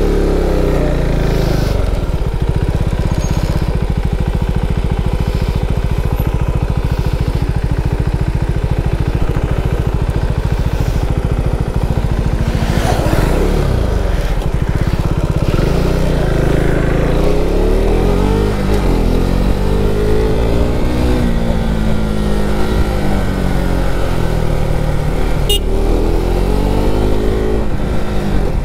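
Motorcycle engine running, its revs rising and falling several times in the second half. A single sharp click sounds near the end.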